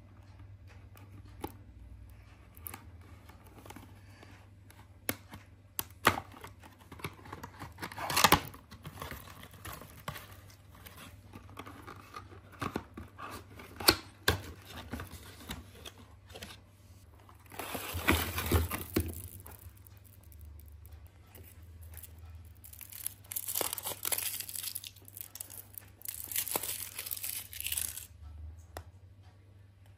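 Hands handling and tearing open cardboard Kinder Surprise boxes, with sharp taps and clicks of card. In the second half come several bursts of foil crinkling and tearing as the eggs' foil wrappers are peeled off.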